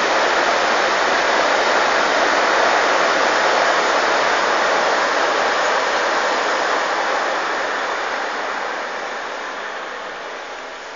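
A passing train: a steady rushing noise that fades gradually over the last few seconds as it moves away.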